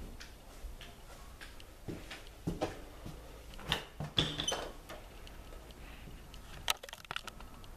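A house's front door being unlatched and opened: a run of handle and latch clicks and knocks, busiest about four seconds in, then a sharp click near the end.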